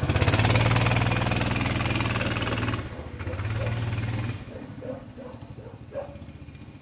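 Baja Warrior 200cc minibike's single-cylinder four-stroke engine revving hard as the bike pulls away, easing off for a moment about three seconds in, then revving again and dropping away quickly as the bike rides off into the distance.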